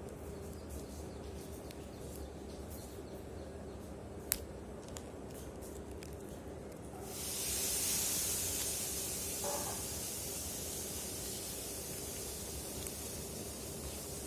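Background noise: a low steady hum, one sharp click a little before halfway, then a steady hiss that swells in about halfway through and holds.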